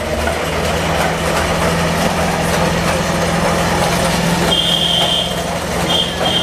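Small diesel shunting locomotive's engine running with a steady low drone as it drives past and away. About four and a half seconds in, a high steady tone sounds twice, first briefly and then longer.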